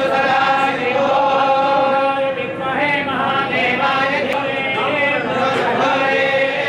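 Group of Hindu temple priests chanting mantras together in a steady unison recitation for a bilva-leaf archana to Shiva, many voices holding long level tones with short breaks between phrases.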